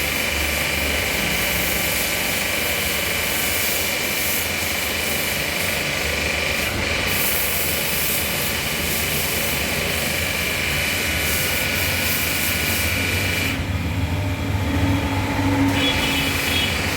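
A moving vehicle running steadily, with engine hum and a constant rushing hiss of wind and road. About two-thirds of the way through, the hiss briefly dies down while a steadier low tone sounds.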